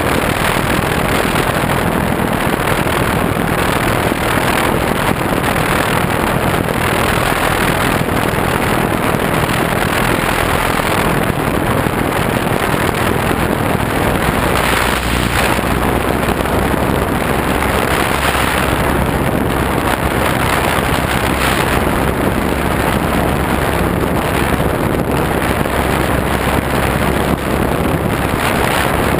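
Steady rush of wind and propeller noise on an onboard camera's microphone as a FunCub RC plane flies, its electric motor driving the propeller just ahead of the camera.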